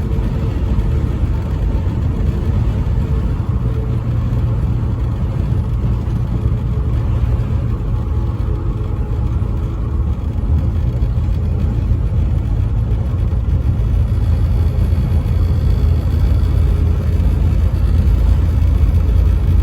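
Steady low rumble of heavy vehicles in motion, growing slightly louder near the end.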